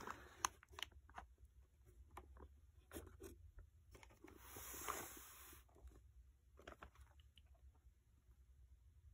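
Faint handling sounds of a cardboard box being opened and its contents touched: light taps and rustles of cardboard, snack packets and a printed card, with a short rustling swish about five seconds in.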